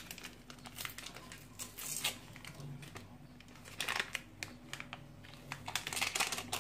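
Small baking-powder sachets crinkling and tearing as they are opened by hand and emptied. The rustling comes in short spells: about two seconds in, around four seconds, and again near the end.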